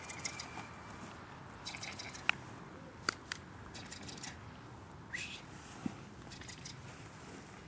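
Faint rustling and a few sharp clicks as a German Shepherd puppy bites, grips and shakes a blue cloth tug toy.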